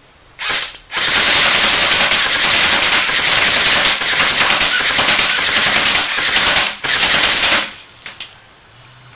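JG M5-S6 electric airsoft gun firing on full auto: a short burst, then one long burst of about seven seconds with a brief break near the end, the gearbox cycling too fast for single shots to stand apart.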